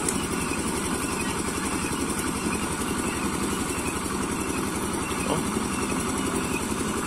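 Engine of a two-wheeled walking tractor running steadily at constant speed, driving the long pipe pump that drains the pond.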